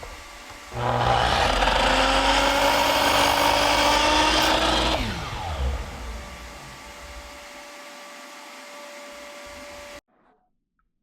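Power drill running at speed for about four seconds, its pitch rising slightly, then released and winding down with a falling whine. A quieter steady hum follows and cuts off suddenly.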